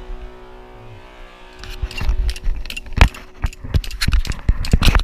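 Background music fading out, followed from about a second and a half in by a loud, irregular run of sharp clicks, knocks and rattles.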